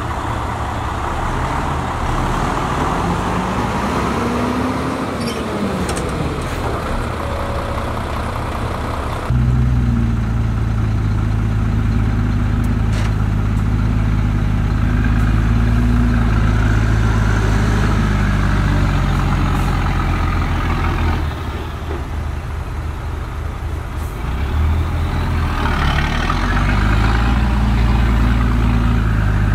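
Heavy diesel engines of earthmoving machinery running at a construction site. An engine revs up and back down early on, then the sound switches abruptly to a louder, deep, steady engine note that dips briefly and picks up again near the end.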